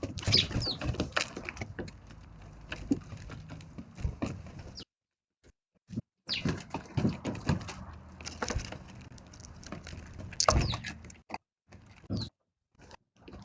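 Eurasian tree sparrows pecking and scrabbling at food on a feeding spot: irregular light tapping, with a few short chirps. The sound cuts out briefly twice.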